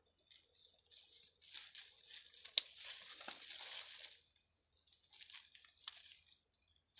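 Mesh sack and dry leaves rustling and crinkling as a snake is worked into the sack by hand, loudest through the middle, with a sharp tick about two and a half seconds in.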